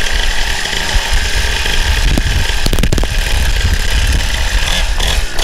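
Small dirt-bike engine idling, with a few sharp knocks about two and three seconds in.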